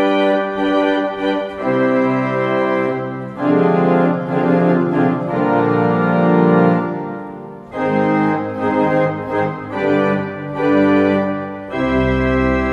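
Rieger pipe organ played on its second manual with full registration (tutti): loud sustained chords in phrases with brief breaks between them, and a deep bass joining near the end.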